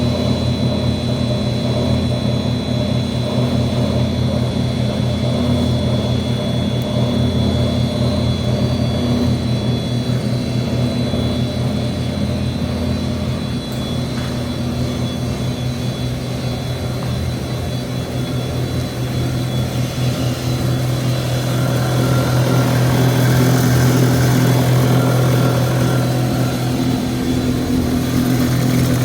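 A 55 mm plastic-recycling extruder running, its 20 hp electric motor and screw drive giving a steady, loud hum with several held tones. About twenty seconds in, a higher hissing noise joins and it grows a little louder.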